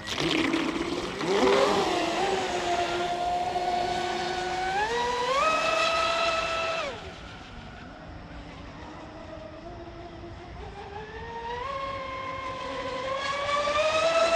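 RC speedboat running on the water: a high motor whine that steps up in pitch about five seconds in, drops away and quietens near seven seconds as the throttle comes off, then builds and rises again over the last few seconds.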